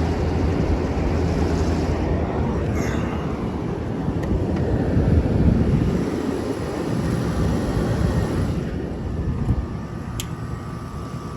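Inverter window air conditioner running, heard from outside at its back: a steady rush of the condenser fan over a low compressor hum. The higher, airy part of the noise eases off about nine seconds in.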